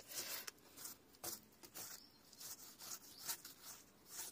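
A stick scraping caked mud out of a car tyre's tread: a string of short, faint scrapes, about two a second.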